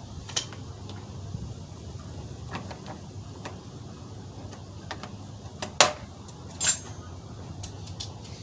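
The 2011 Chevy Tahoe's new exterior door handle and latch being worked: a few light clicks, then two louder sharp clacks about six and seven seconds in, the second with a brief metallic ring.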